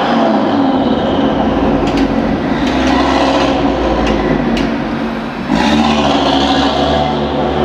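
Audi RS3's five-cylinder engine running hard under load, dipping briefly about five and a half seconds in and picking straight back up. A few sharp cracks sound over it.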